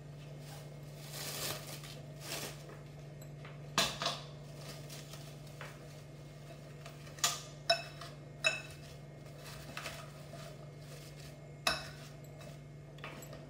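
A ceramic bowl handled on a stone countertop while plastic cling film is stretched over it: a few soft crinkling rustles, then several sharp clinks and knocks, some with a brief ring. A steady low hum runs underneath.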